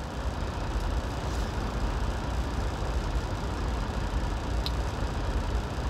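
Truck engine idling, a steady low rumble heard inside the cab. A single faint click comes about four and a half seconds in.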